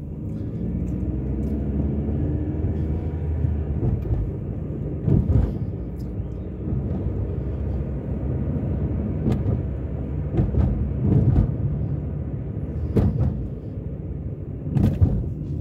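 A car driving at steady speed, heard from inside the cabin: a continuous low engine and road rumble, with a few short knocks now and then.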